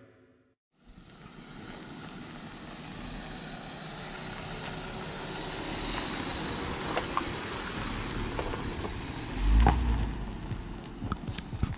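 Jeep Wrangler driving slowly past on a dirt trail: engine and tyres on gravel, growing louder as it approaches. The sound is loudest as it passes close, about ten seconds in, then scattered stone clicks follow.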